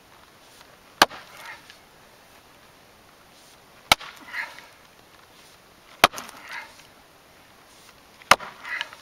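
A splitting maul striking a resin-soaked pine fatwood stump four times, a few seconds apart, knocking pieces off it.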